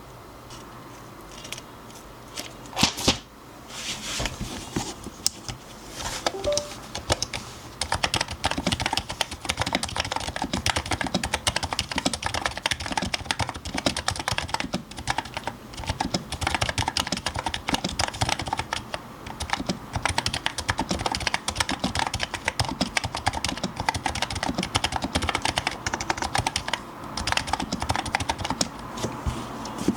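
Typing on an electro-capacitive (Topre-style) keyboard with 30 g domes and an aluminium top-mount plate. A few scattered keystrokes come first, then steady, fast typing from about seven seconds in, with a brief pause near the end.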